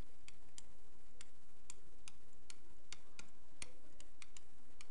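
A stylus tapping and clicking on a pen tablet during handwriting: sharp, irregularly spaced clicks, about three a second, over a steady background hiss.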